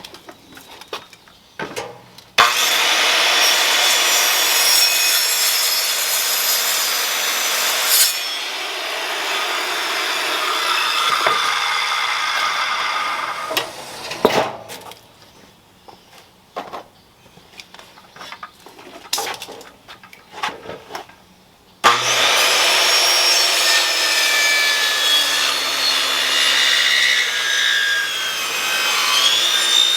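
Jigsaw cutting through a yellow pine 2x12 in two long runs, each starting suddenly at full loudness: one a couple of seconds in, the other past the middle. Between the runs there are scattered light knocks and clicks.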